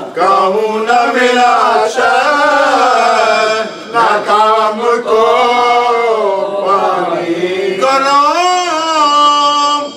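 A man's voice chanting a melodic mourning lament, a recitation of the sufferings at Karbala, in long drawn-out notes that bend and waver in pitch. Short breaks fall between phrases about four seconds in and near the end.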